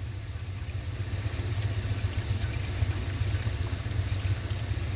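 Engine oil draining from the oil pan into a drain dolly, held back to a slow, even flow, under the steady low roar of evaporative coolers running full blast.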